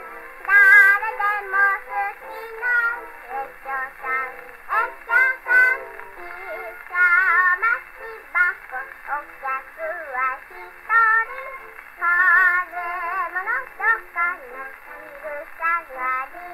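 A Nitto No. 20 acoustic gramophone plays a shellac 78 rpm record through a finned steel needle: a young girl sings with a wavering vibrato over band accompaniment. The sound is thin and narrow, with almost no bass or treble, and there is a faint hiss above it.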